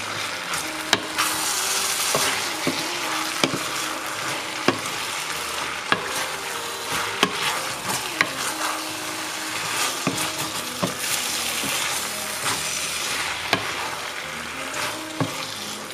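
Pad thai noodles sizzling in a hot wok over high heat while being stirred and tossed with a wooden spatula, which knocks against the pan every second or so.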